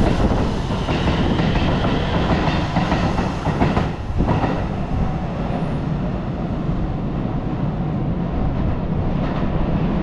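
Shin-Keisei Line electric train running past on the track, a steady rumble of wheels on rails.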